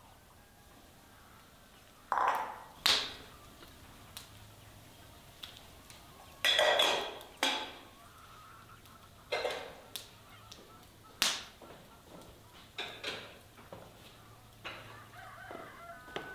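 Ceramic dishes and bowls being handled while drying and setting them down: a series of separate clinks and knocks, some with a short ringing tail, the longest clatter about six and a half seconds in.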